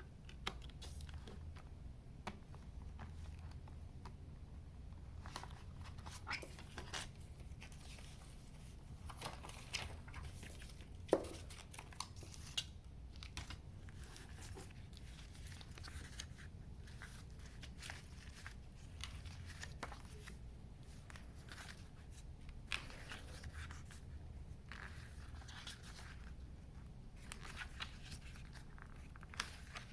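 Hands unwrapping and handling a CD album's packaging: plastic wrap crinkling and tearing, with scattered small clicks and taps and one sharper tap about eleven seconds in.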